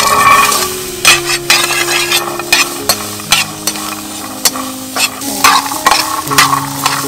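Food sizzling in a hot pan while it is stirred, with the utensil knocking and scraping against the pan many times. Soft background music with steady low notes runs underneath.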